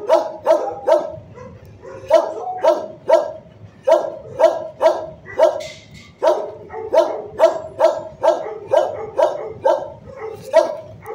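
A shelter dog barking over and over in a steady rhythm, about two to three barks a second, with a couple of brief pauses. It is not the pictured dog, which lies asleep.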